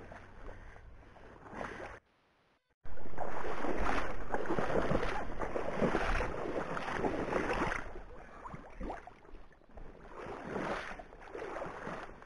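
A person wading through shallow marsh water, the water splashing and sloshing at each step. After a brief silent gap about three seconds in, the splashing turns loud and continuous for several seconds, then breaks into separate splashes, one per step.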